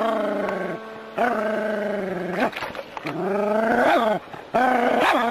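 Dog giving long, drawn-out cries, four in a row, each about a second long, with the pitch bending at the end of each.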